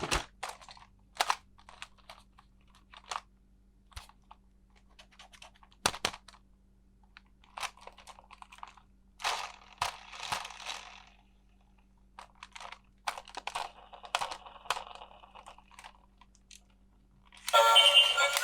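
Toy packaging handled by hand: plastic crinkling and rustling, with sharp clicks and taps scattered among them. Music with a melody starts near the end.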